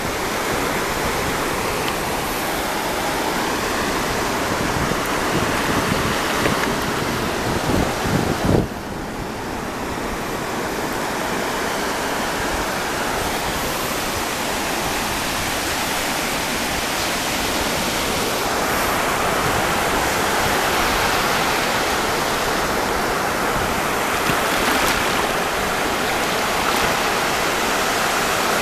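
Shallow surf washing in and out over a sandy beach: a steady rushing of water, with wind on the microphone. The sound drops off sharply for a moment about eight seconds in, then builds back.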